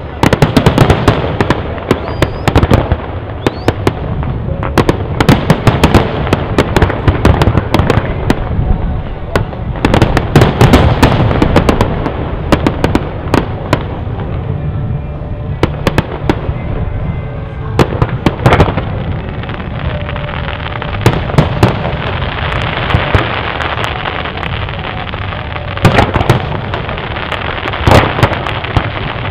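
Fireworks display: aerial shells bursting in a dense run of bangs over continuous crackling. It thins out for a few seconds around the middle, then builds up again.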